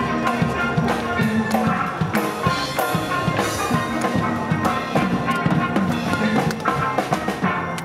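Steel pan band playing a tune, the pans' ringing notes over a steady drum beat.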